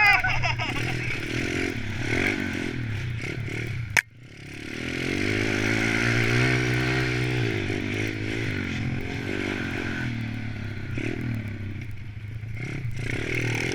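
Small single-cylinder four-stroke pit bike engines revving up and down as the bikes ride the track. A sharp click about four seconds in, then the sound drops out briefly and the engines build again.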